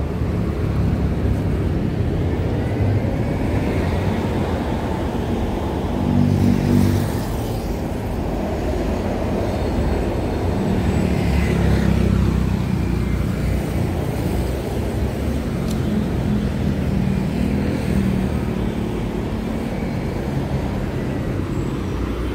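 Steady low rumble of a motor vehicle, swelling and easing a few times.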